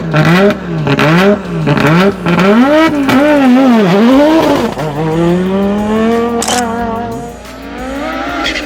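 Race car engine sound effect revving up and down in quick repeated blips, about two a second. About halfway through it climbs in one long rise, eases off, then builds again near the end.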